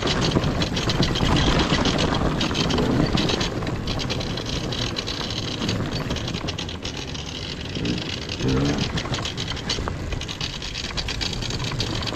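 1995 KTM 300 two-stroke dirt bike engine running as the bike rides along a dirt trail, with a steady rattling drone and wind and trail noise on the helmet microphone.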